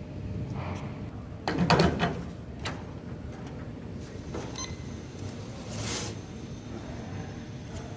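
Knocks and clatter of espresso-making equipment being handled, over a steady low hum. The loudest is a rattling clatter about one and a half seconds in, followed by scattered clicks and a brief hiss-like burst near the end.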